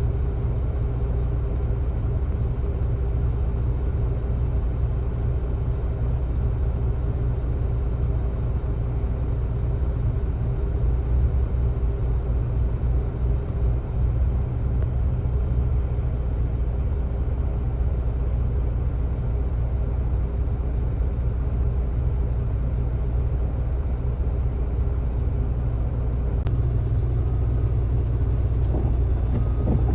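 Heavy diesel engine of quarry machinery running steadily under load, a continuous low rumble with a steady hum above it.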